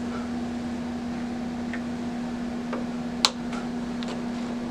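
Steady low mechanical hum of room noise, with a few faint clicks and one sharp click about three seconds in as the ring light's control buttons are pressed to change its setting.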